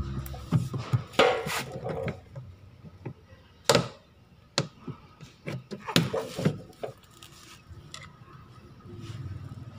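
Irregular knocks, clicks and scrapes from refitting the plastic back cover of a twin tub washing machine with a screwdriver. Several sharp knocks about a second apart in the first half, then scattered clicks that thin out.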